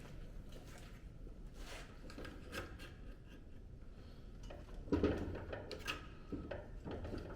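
Hand-lever metal shrinker being worked on a strip of sheet steel: faint metallic clicks and scraping, with two louder clunks about five and six seconds in.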